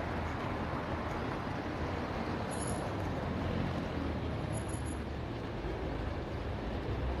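City street traffic noise: cars driving past on a wet road, a steady hiss with a low rumble underneath.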